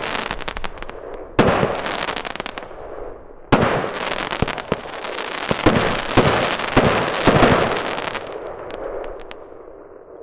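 Stealth Fireworks Fire Cube 25-shot firework cake firing its finale: several loud bangs a second or so apart over dense crackling from crackling glitter stars, dying away near the end.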